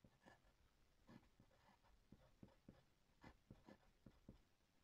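Wooden graphite pencil writing block capital letters on grid paper over a wooden surface: faint, short strokes, one per line of each letter, coming in quick runs.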